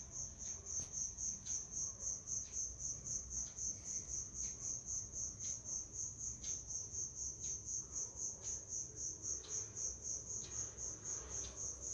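A cricket chirping steadily: a high, thin tone pulsing rapidly and evenly without a break.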